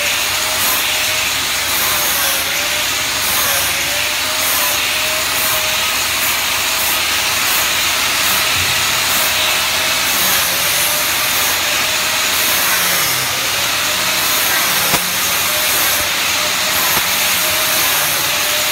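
A handheld rotary grinding tool working an aluminium sheet: a steady hiss of grinding with a thin whine that wavers up and down as the tool is pressed and moved.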